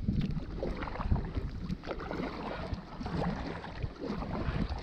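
Water sloshing and splashing against a kayak, with wind rumbling on the microphone.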